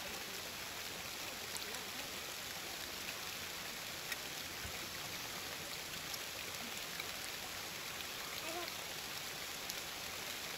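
Steady rain falling, a soft even hiss with scattered light drips and taps.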